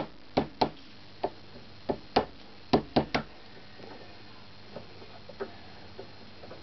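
Light taps of a plastic-faced mallet on a Shure SM58's wire mesh grille, which is held over a screwdriver's rounded handle, working out a dent to restore the grille's round shape. About nine quick, uneven taps come in the first three seconds, then a few faint ticks.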